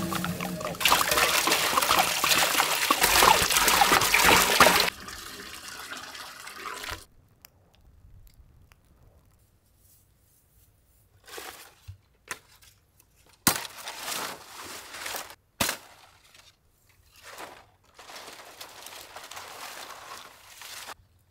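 Water being poured, loud for about the first five seconds and then tailing off, followed by a few short splashes and a couple of sharp knocks.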